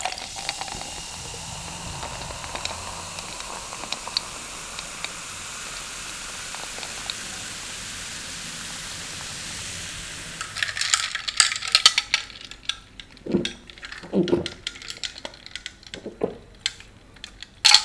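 Sprite poured from a can over ice into a glass: a steady fizzing hiss with small clicks for about ten seconds. After a few sharp knocks, drinking through a straw with repeated gulps about once a second.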